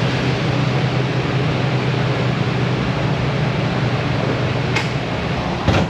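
Steady whooshing whir with a constant low hum, like a fan or blower running; a short knock near the end.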